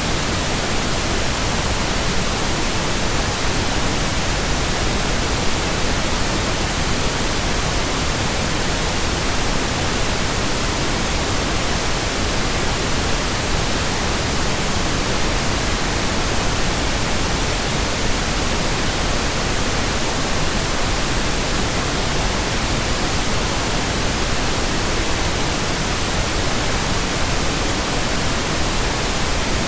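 Steady synthetic pink noise: an even, unbroken hiss with no changes.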